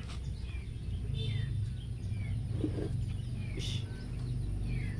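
Small birds chirping in short, falling calls at scattered moments over a steady low rumble, with one brief hiss about three and a half seconds in.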